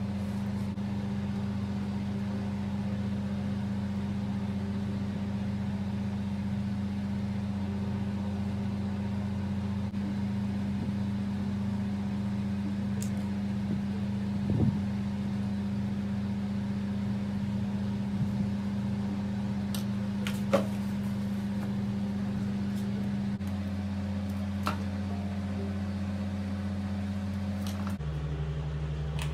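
Steady low machine hum, like a fan or air conditioner running in a small room, with a few brief light ticks and taps from handling the helmet and peeling masking.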